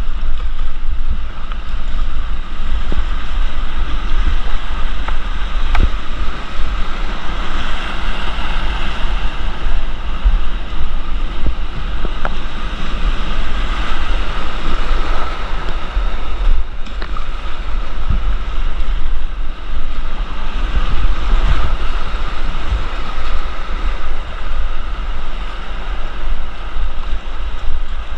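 Rushing whitewater of a creek rapid heard from a kayak, a loud steady wash with low rumbling buffeting on the microphone and a few sharp knocks.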